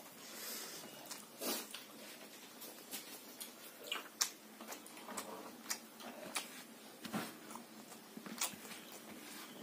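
Faint eating sounds of someone eating rice by hand: chewing and wet mouth smacks, with fingers mixing and scooping rice on a banana leaf. Scattered short clicks and smacks, with no steady sound under them.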